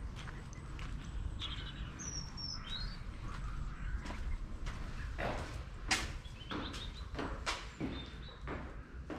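Small birds chirping a few times, then footsteps of a walker from about four seconds in, about two steps a second, onto the stone floor of a cloister passage, over a steady low rumble.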